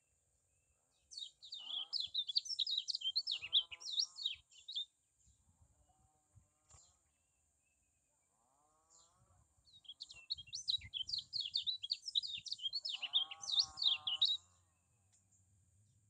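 A white-eye (kecial kuning) singing in two bursts of fast, high chattering song, each about four seconds long, with a pause of several seconds between them.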